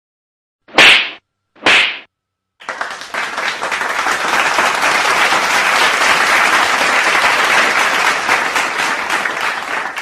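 Two short, sharp swishes about a second apart, like a whip sound effect, followed by a long stretch of dense clapping applause that fades at the end.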